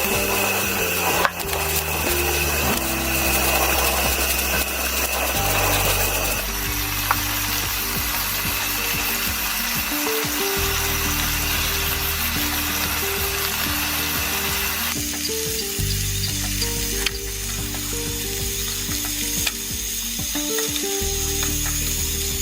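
Food sizzling in a frying pan, a steady crackle, over soft background music of slow, held low notes.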